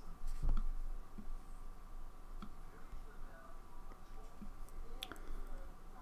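A few sharp, isolated computer mouse clicks, a pair of them near the end, over a faint steady hum.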